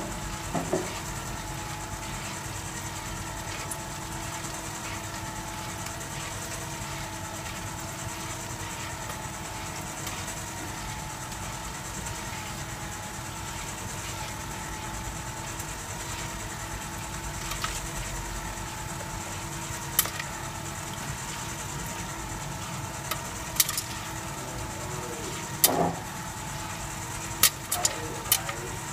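Popcorn vending machine running: a steady hum and whine from its motor and fan, with a few sharp clicks in the last third that come closer together near the end.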